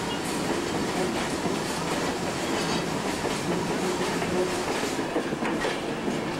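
Railroad car wheels rolling on the track, a steady rumbling clatter with occasional clicks.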